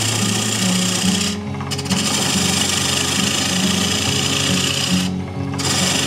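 Half-inch bowl gouge cutting a laminated walnut, canary wood and maple bowl blank spinning on a wood lathe at 1200 RPM: a steady hiss of shavings coming off the wood. The cut breaks off briefly twice, about a second and a half in and about five seconds in.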